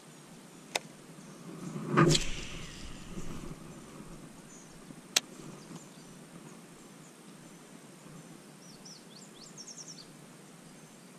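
Quiet outdoor lake background with handling noise from a small boat and fishing tackle. A single sharp click comes just under a second in and another about five seconds in. The loudest sound is a knock with a deep rumble about two seconds in, trailing off over a second or so. A bird gives a quick run of chirps near the end.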